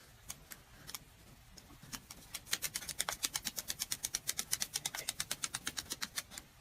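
Rapid, evenly spaced clicking, about eight clicks a second. It starts sparse and faint, then becomes steady and louder from about two seconds in, and stops near the end.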